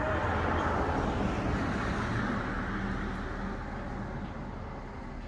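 A car driving past on the highway: its tyre and engine noise swells about a second in, then fades away.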